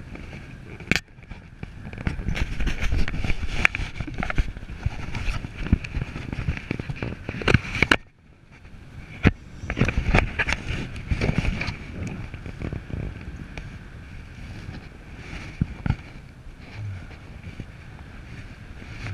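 Wind buffeting the camera's microphone in uneven gusts during a paraglider flight, dropping away sharply for a moment about eight seconds in before building again.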